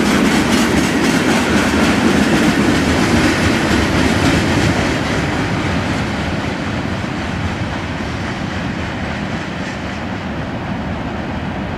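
CSX freight train's gondola cars rolling past, steel wheels clacking rhythmically over the rail joints. The noise eases somewhat after about five seconds.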